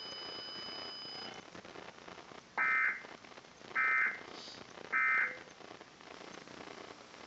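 Emergency Alert System end-of-message data tones: three short buzzy bursts of digital tones about a second apart, signalling the end of the alert. Before them, a faint steady high tone cuts off just over a second in.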